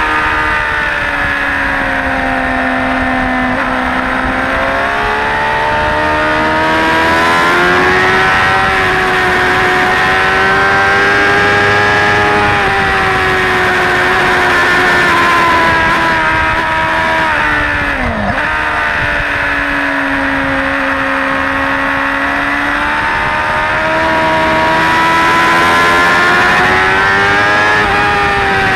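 Suzuki GSX-R600 K4's inline-four engine heard onboard at track speed, its revs climbing under acceleration and dropping back several times, with a quick fall in pitch about two-thirds of the way through. A steady rush of wind runs underneath.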